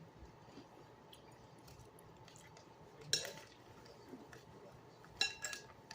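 A spoon clinking against a soup bowl: one short ringing clink about three seconds in, then a quick couple of clinks near the end.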